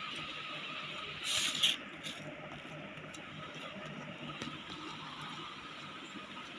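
Hands pressing a soft potato mixture flat into an oiled steel plate, faint over a steady background hiss, with one brief louder rustle about a second and a half in.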